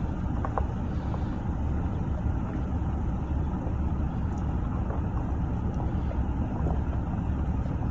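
Steady low rumble of a car running slowly or idling.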